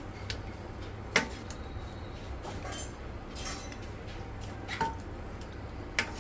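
A metal utensil clinking and scraping against a cooking pot in a few sharp knocks, the loudest about a second in, over a steady low hum.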